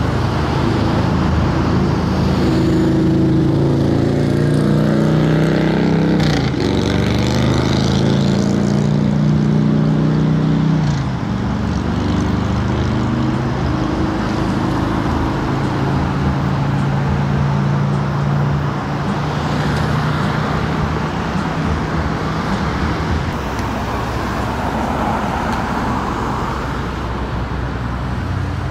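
Stop-and-go road traffic of cars and pickup trucks, engines running as they creep forward and pull away. For about the first ten seconds a deeper engine drone rises and falls in pitch over the steady traffic noise.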